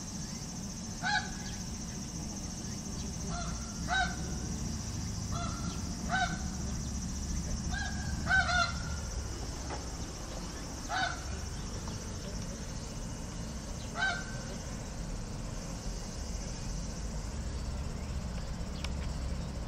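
Short honking animal calls, about ten of them at irregular intervals and none after the first fourteen seconds or so, over a steady low hum.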